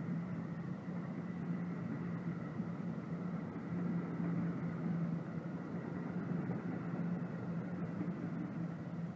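New Jersey Transit double-decker commuter coaches rolling past at speed: a steady rumble of steel wheels on rail, with a faint steady high tone over it.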